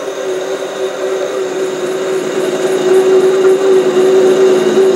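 SC2 mini lathe running while a parting tool is hand-fed into a 28 mm aluminium rod, cutting chips, with a steady pitched whine that grows louder about three seconds in.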